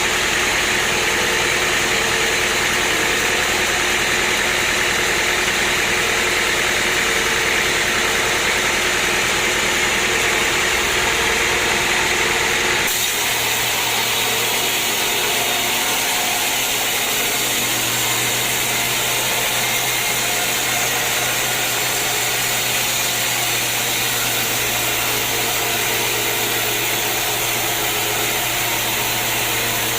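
Sawmill machinery running steadily with a loud, even mechanical noise. A little before halfway the sound changes abruptly, and a steady low hum comes in for the rest.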